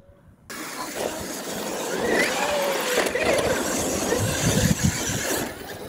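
Radio-controlled solid-axle monster truck driving on dirt: its motor whines, rising and falling with the throttle, over the noise of the tyres scrabbling through loose dirt. The sound starts suddenly about half a second in.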